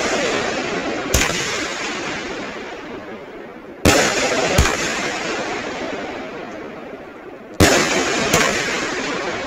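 A 12-shot consumer firework cake firing, with five loud sharp bangs, the last four in pairs under a second apart. Each bang is followed by a long fading crackling hiss as the aerial shells burst with glitter.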